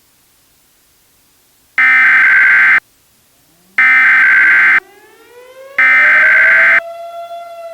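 Emergency Alert System header: three harsh one-second bursts of digital data tones, about two seconds apart, after a faint hiss. Under the second and third bursts a fire siren winds up, its pitch rising steadily and levelling off near the end.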